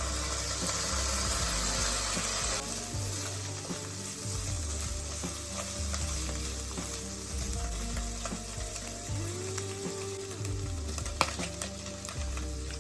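Food sizzling in a hot frying pan, louder for the first couple of seconds and then settling to a steady sizzle, with one sharp click about eleven seconds in.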